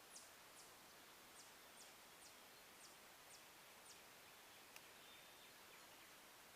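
A bird giving faint, short, very high call notes, each dropping quickly in pitch, about eight of them at roughly half-second intervals over four seconds, against a faint steady hiss.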